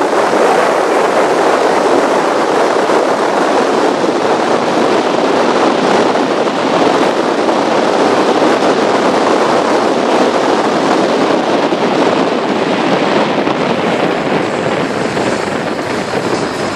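Steady loud rush of wind and water noise from a powerboat under way, heard through a camera mounted on its bow deck, with no distinct engine note standing out.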